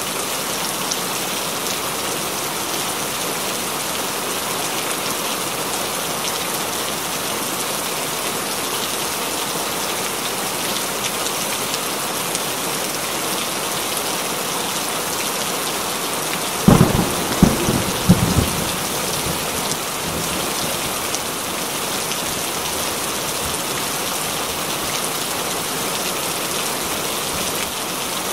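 Steady, heavy rain. A bit past halfway a sharp thunderclap breaks in and rumbles through several loud peaks for about two seconds before the rain carries on alone.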